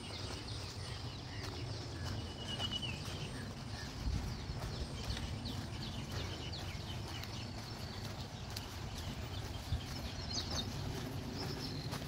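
Footsteps walking along a dirt forest trail, with a few short bird chirps now and then.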